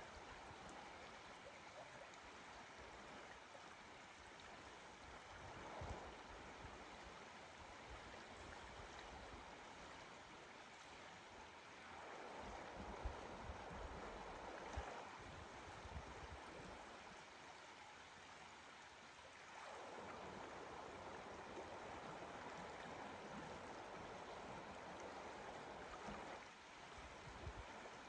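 Faint, steady rushing of the Lower Deschutes River, swelling louder for a few seconds at a time, with a few soft low thumps.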